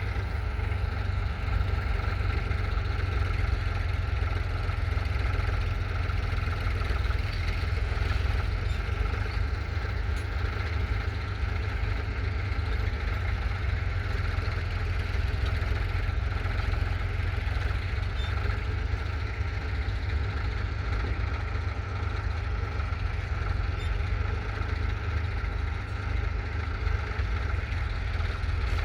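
1970 Ford 3000's 2.9-litre three-cylinder diesel tractor engine running steadily.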